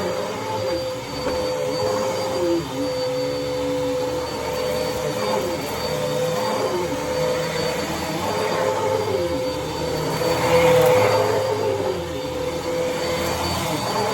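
Dirt Devil Breeze cyclonic vacuum cleaner running: a steady motor whine with a held high tone over the rush of air, and lower tones that slide up and down every second or so as it works across the floor, briefly louder about ten seconds in.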